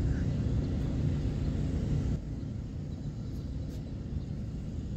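Low rumbling outdoor noise, which drops noticeably in level about two seconds in.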